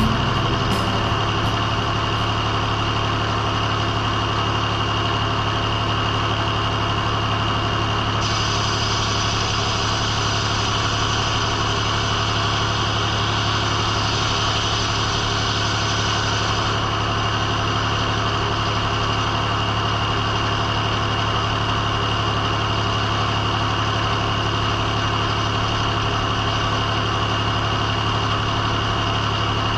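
Circle sawmill's engine running steadily at constant speed with a steady high whine. An extra hiss joins from about 8 to 17 seconds in.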